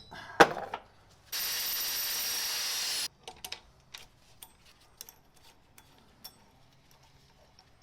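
A sharp knock, then a power tool runs steadily for about two seconds and stops abruptly, during the grinding-down of a fender washer into a pulley shim. Scattered light clicks and taps follow.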